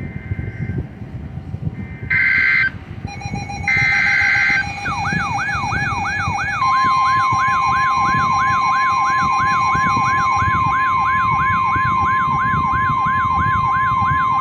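Emergency alert tones: short bursts of two-tone digital SAME data, then an alarm sweeping rapidly upward about three times a second. About six and a half seconds in, a steady 1050 Hz NOAA Weather Radio warning tone joins the sweeps, marking the start of a new flood warning broadcast.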